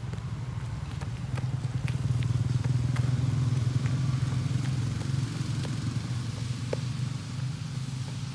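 Steady low engine hum that grows louder through the middle and then eases off, with light scattered footfalls of running shoes on wet asphalt over it.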